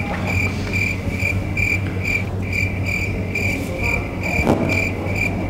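Background track of a high electronic blip repeating evenly, about two and a half times a second, over a steady low hum. There is a soft thump about four and a half seconds in.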